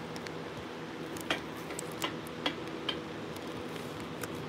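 A few light, sharp clicks, four of them within about a second and a half near the middle, over a steady background hiss.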